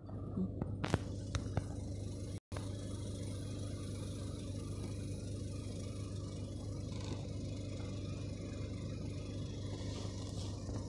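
Car engine idling with a steady low hum, heard from inside the parked car, with a few faint clicks in the first second and a half.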